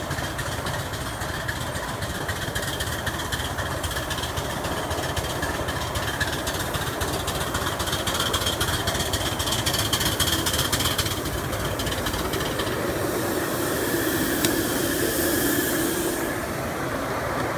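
Ride-on miniature railway train running along its track: a steady mechanical running sound with the rumble and clatter of the wheels on the rails.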